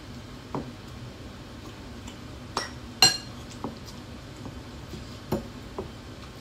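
Metal fork and spoon clinking and scraping against ceramic bowls while eating: about six separate clinks, the sharpest and loudest about three seconds in.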